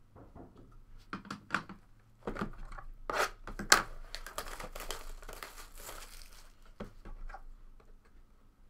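Plastic shrink wrap being torn and crinkled off a trading-card box: a run of sharp rips and crackling rustles, the loudest a little under four seconds in.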